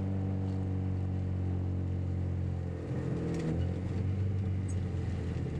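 Volkswagen Scirocco Mk1's four-cylinder petrol engine pulling steadily under load, heard from inside the cabin. About three seconds in the engine note dips and breaks briefly, then picks up again at a different pitch.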